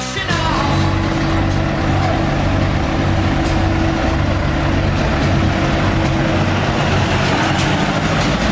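Scania Next Gen truck's V8 diesel engine running steadily at low revs as the truck drives slowly past, with a steady hum over the low engine note.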